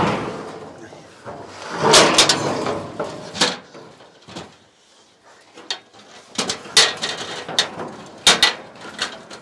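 Irregular knocks, clunks and clatter of hands-on roof-building work, with sharp louder knocks about two, three and a half, seven and eight and a half seconds in.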